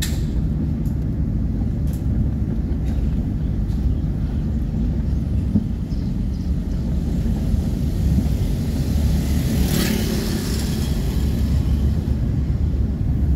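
Steady low rumble of engine and road noise from a slowly moving vehicle, with a brief rushing hiss about ten seconds in.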